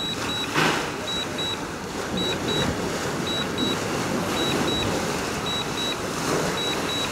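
DJI Mavic Air 2 remote controller giving faint short double beeps about once a second, the alert it sounds while the drone returns home automatically, over a steady wash of outdoor background noise.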